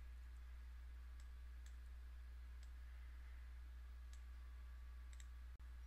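Faint computer-mouse clicks, about six scattered over a few seconds, over a steady low electrical hum.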